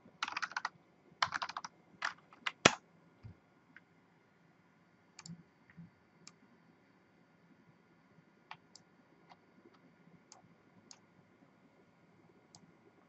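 Computer keyboard typing in quick bursts over the first three seconds, followed by scattered single clicks.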